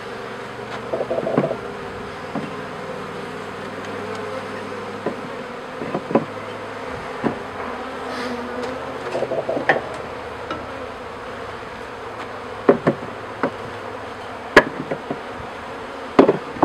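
Honeybees buzzing steadily in a top-bar hive, with a series of sharp wooden knocks and clicks as the wooden top bars are set down and shifted over the hive; the loudest knocks come in the second half.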